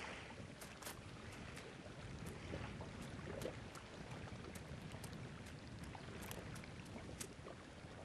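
Faint, steady outdoor background noise with a soft hiss, and a few faint ticks scattered through it.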